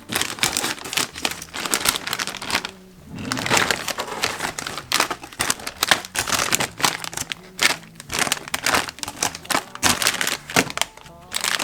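Crinkling and rustling in many short, irregular bursts, like something being handled up close.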